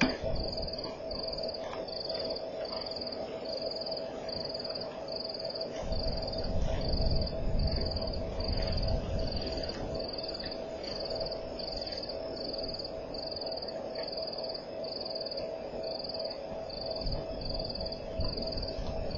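Night chorus in the bush: a high, even chirp repeating about twice a second over a steady lower drone, with stretches of low rumble around six to nine seconds in and again near the end.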